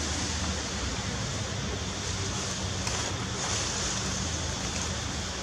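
Steady outdoor background noise: an even hiss, strongest in the high range, over a low rumble, much like wind on the microphone.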